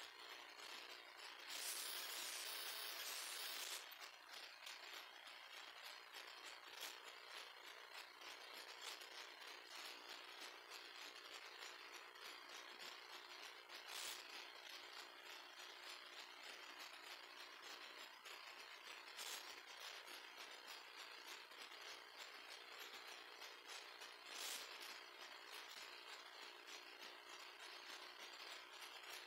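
Faint ratcheting clicks of a computer mouse scroll wheel over low hiss, as a web page is scrolled. A short burst of rustling noise comes about two seconds in, and three single clicks come later.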